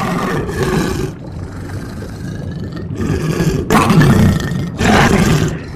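Sound-effect roaring and growling of a large beast, with two louder roars in the second half.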